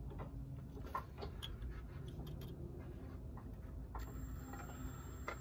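Ryobi cordless drill turning slowly, boring a pilot hole into the Watts link stud for an extractor, with a low steady hum and scattered faint ticks of the bit on the steel.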